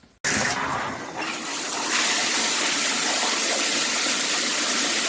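Water spraying steadily from a 9-inch overhead rain shower head at high flow: a loud, even hiss that starts abruptly just after the start.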